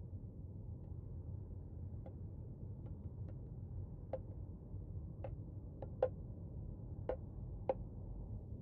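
Scattered small ticks and clicks at an uneven pace, growing sharper after about four seconds, over a low steady hum of night-time room tone.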